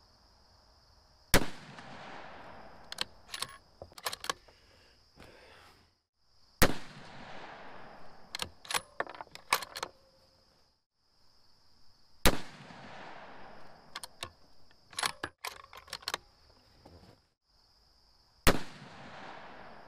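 Four rifle shots from a Savage Axis II Precision bolt-action rifle, about five to six seconds apart, each followed by a few clicks of the bolt being worked.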